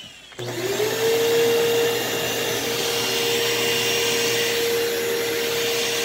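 Bissell upright vacuum cleaner switched on about half a second in, its motor spinning up within a second to a steady whine over a rush of airflow. By the owner's account the motor still needs more work.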